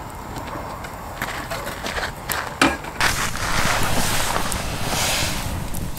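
Wood campfire crackling with sharp, scattered pops. About halfway through, a louder, steady rushing hiss joins in.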